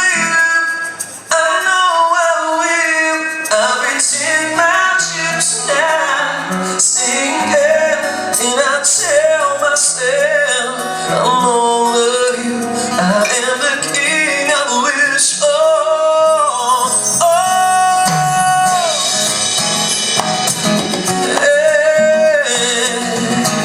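A male singer sings over amplified backing music, with held, gliding vocal notes and a steady bass line.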